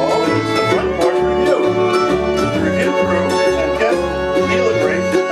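Live acoustic string band playing the opening theme music, with a steady bass line under the melody.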